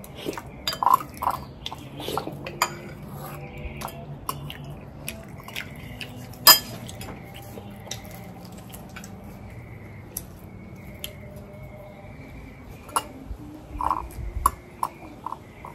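Kitchen dishes and utensils clinking and knocking at irregular intervals, with one sharp knock about six and a half seconds in that is the loudest sound.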